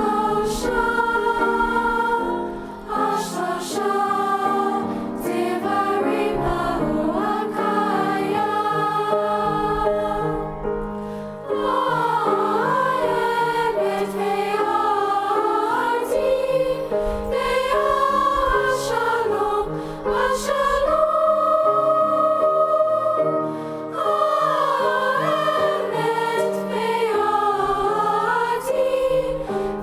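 A choir singing, voices holding long notes in several parts at once, with short breaks between phrases.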